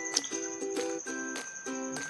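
Light background music: a tune of short, evenly repeated notes over a steady high tone.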